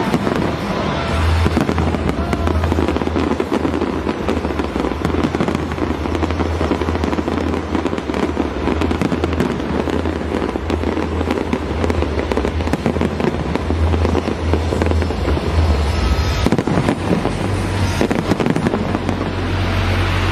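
A dense, continuous barrage of aerial firework shells bursting and crackling, the reports overlapping without a break.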